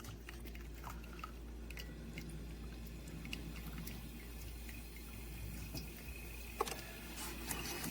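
Faint dripping and trickling of water from an AIRMSEN espresso machine brewing water-only, with a few small ticks over a low steady hum.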